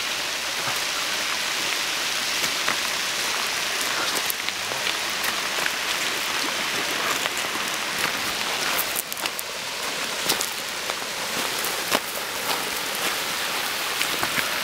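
Flash-flood water front surging over a dry gravel wadi bed: a steady rushing hiss full of small crackles and pops.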